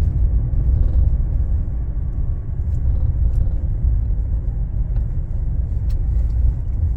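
Wind buffeting the microphone in a blizzard: a loud, steady low rumble that flutters constantly, with a few faint ticks.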